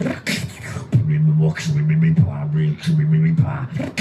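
Human beatboxing into a microphone. A held low bass note is broken roughly once a second by kick-drum and snare-like hits, all made with the mouth.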